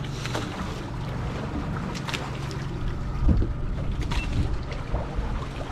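Boat noise at sea: a steady low hum with water and wind sounds and scattered small knocks, and a heavier thump about three seconds in.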